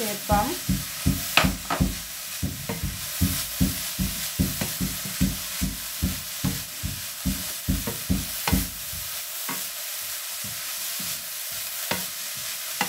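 Vegetables (shredded carrot, sliced leeks and beans) frying in oil in a non-stick pan, sizzling steadily, while a wooden spatula stirs them with a rapid run of knocks against the pan for about the first nine seconds, then only a few.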